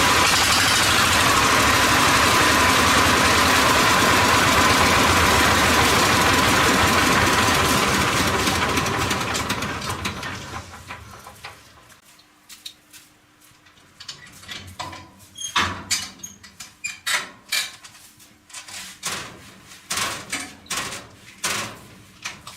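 A motor runs steadily and loudly, then dies away over a few seconds. Scattered sharp clicks and knocks follow, like metal parts being handled.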